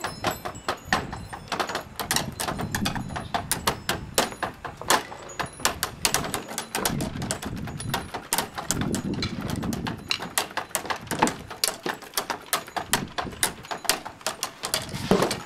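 Rapid, irregular knocks and clicks, with a few duller low thumps in between.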